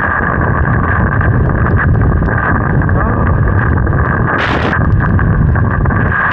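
Strong mountain wind buffeting the microphone: a loud, continuous low rumble, with a short hissing gust about four and a half seconds in.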